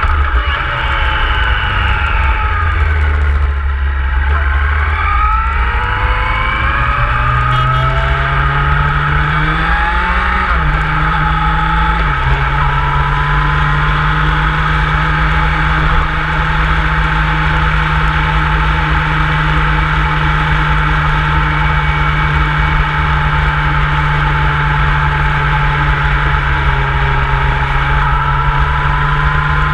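Motorcycle engine slowing, then accelerating with a gear change about twelve seconds in, then running at a steady cruising speed.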